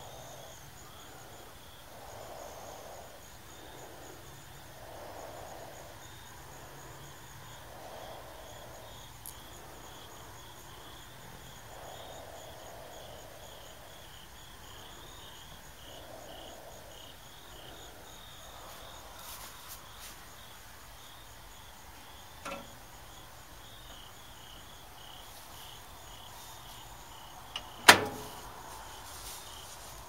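Insects chirping in a steady pulsing rhythm, with a faint click about two-thirds through and a single sharp clunk near the end as the microwave oven's door is shut.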